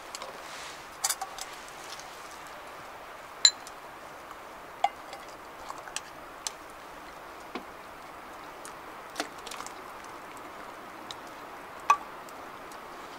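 A metal ladle clinking against a cooking pan and a metal mug as hot chocolate is ladled out. About eight sharp, briefly ringing clinks are scattered over a steady low hiss, the loudest about three and a half seconds in and near the end.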